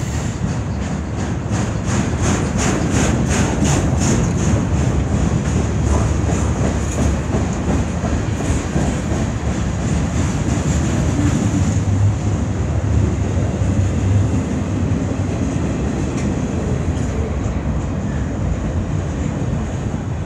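Freight cars of a passing CN freight train rolling by, steel wheels rumbling on the rails, with a run of rhythmic clickety-clack over rail joints, about three clacks a second, a couple of seconds in.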